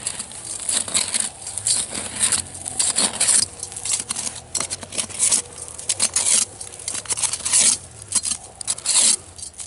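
Ice chips and slush being scooped out of an ice-fishing hole by hand and with a metal slotted skimmer: irregular splashing, crunching and clinking.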